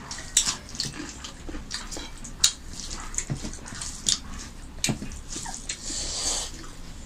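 Mouth and hand sounds of two people eating rice and chicken curry with their fingers: wet chewing, lip smacks and the squish of rice being mixed by hand, with irregular sharp clicks and a brief hiss near the end.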